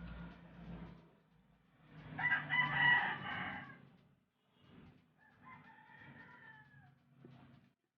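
A rooster crowing: one loud crow about two seconds in, then a fainter crow that falls in pitch at its end a few seconds later.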